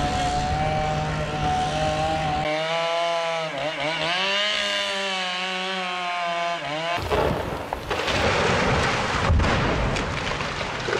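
Chainsaw engine running hard, its pitch dipping and recovering several times. About seven seconds in it gives way abruptly to a noisier, clattering sound with scattered knocks.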